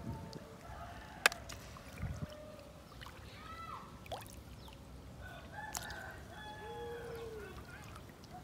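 Roosters crowing: several long calls, each falling in pitch at the end, with a sharp click about a second in.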